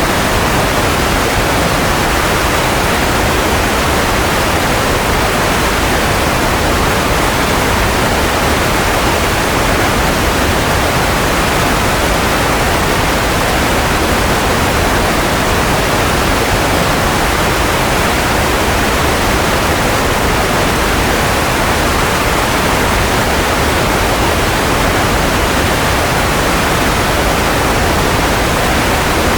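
Steady white noise for lulling a baby to sleep: an even, rushing hiss with no hum, whine or change.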